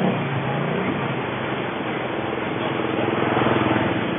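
Motor vehicle engine running with road and traffic noise while moving along a street; a higher engine note grows louder about three seconds in.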